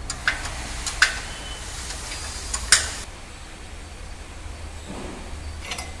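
A few sharp metallic clinks of a combination spanner on the upper control arm bolt of a Toyota Fortuner's front suspension as the bolt is tightened, over a low steady hum.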